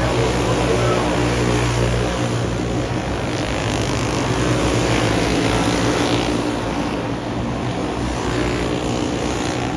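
Race car engines running steadily on the track, a continuous drone.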